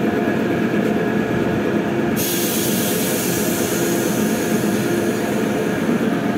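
Tyre-shop air compressor running steadily: a hum with several steady tones. About two seconds in, a high hiss joins it and carries on.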